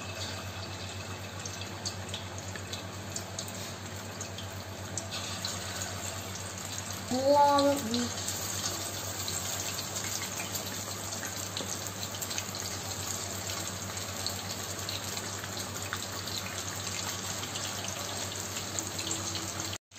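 Marinated chicken pieces deep-frying in hot oil in a kadai: a steady sizzle that grows fuller about five seconds in. A brief voice cuts in about seven seconds in.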